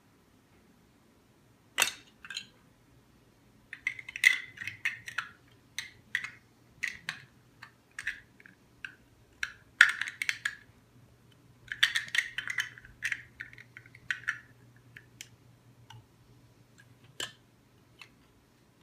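Plastic Lego pieces clicking and clattering as they are handled, in irregular bursts of sharp clacks with short pauses between them.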